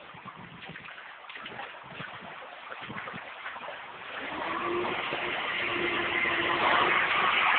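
Floodwater sloshing and splashing irregularly as someone wades through it. From about four seconds in, a steady rushing noise builds and grows louder.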